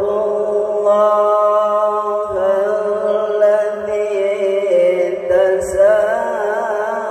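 A male qari reciting the Quran in melodic tilawah style, holding one long unbroken phrase. It steps up in pitch about two seconds in and turns into quick wavering ornaments near the end.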